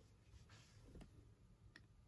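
Near silence, with three faint, short clicks, the loudest about a second in.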